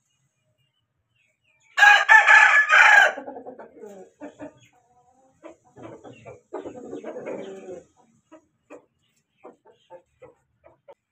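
Aseel rooster crowing once, loud and high, for about a second and a half, with the crow trailing off. A lower, quieter clucking call follows about six and a half seconds in, then scattered soft clucks.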